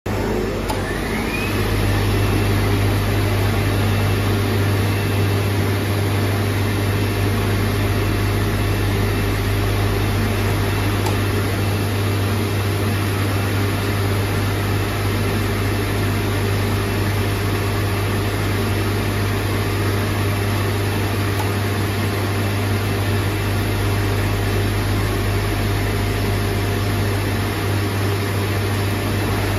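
CNC oscillating knife cutting machine running as it cuts fabric: a loud, steady mechanical hum and whir with a strong low drone. It builds up over the first couple of seconds, with a short rising whine about a second in.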